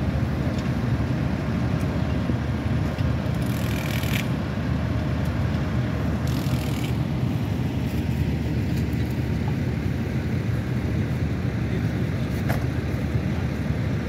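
Tractor diesel engines running close by, a steady low rumble, with two short hisses, one about three and a half seconds in and one about six and a half, and a single click near the end.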